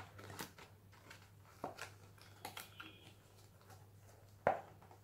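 Rustling and crinkling of a small plastic chocolate packet being handled and opened by hand, with scattered small clicks and one sharper snap about four and a half seconds in.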